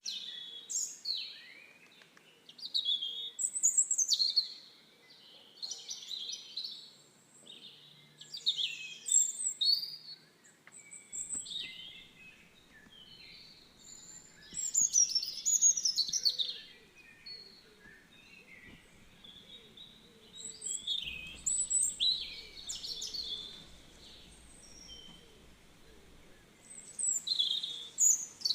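Birds singing and chirping in repeated short bursts of quick, sweeping high notes, with brief pauses between phrases.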